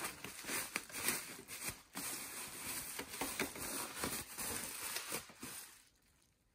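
Plastic bubble wrap rustling and crinkling with scattered small crackles as it is pulled off a coil spring by hand; it cuts off near the end.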